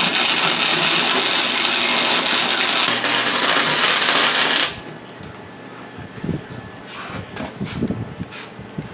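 Electric arc welding on steel: a loud, steady crackling hiss that stops abruptly a little over halfway through. After it come quieter scattered clicks and knocks of metal being handled.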